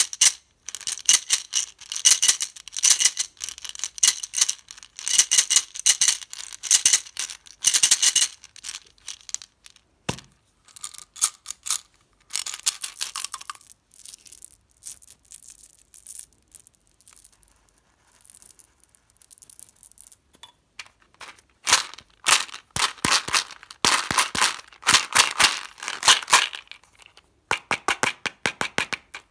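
Small hard-coated candies rattling and clicking inside a plastic umbrella-shaped candy tube and spilling into a hand, in irregular bursts of sharp clicks with a quieter stretch midway. Near the end, plastic clicking and rattling from handling and opening a snap-lid gum tub.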